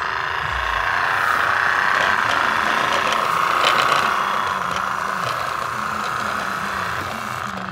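Battery-powered remote-control toy car's small electric motor and gears running with a steady whir as it drives across a hard floor, dropping off near the end.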